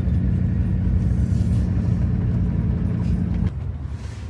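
Vehicle engine running steadily under load with low road rumble, cutting off suddenly about three and a half seconds in.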